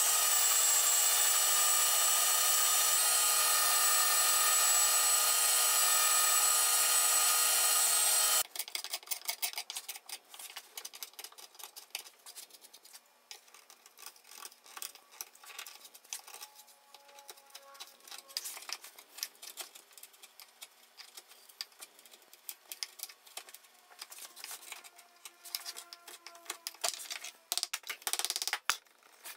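An electric random orbital sander runs steadily with a high whine for about eight seconds, then cuts off abruptly. After it, a carving gouge scrapes and clicks as it hollows out the bowl of a wooden spoon, with a few louder mallet taps near the end.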